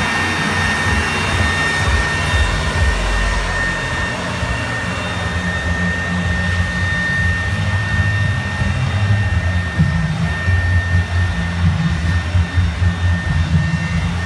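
A steady air-blower drone with a constant thin whine, the kind of electric blower that keeps a walk-in plastic bubble inflated. Under it runs an irregular low rumbling and thumping, busier in the second half, as the bubble's plastic moves.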